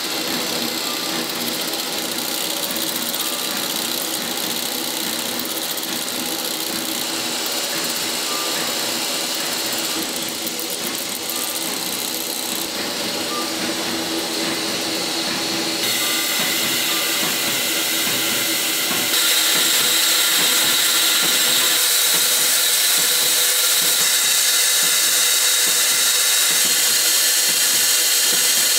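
Oil filter production-line machinery running steadily, with a constant hiss over a machine hum. The sound steps louder twice in the second half.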